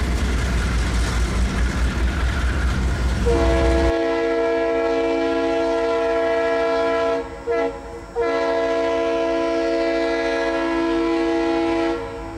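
Freight train cars rolling past with a steady low rumble. About four seconds in, a locomotive's multi-chime air horn sounds a long blast, a short one, then another long blast for a grade crossing.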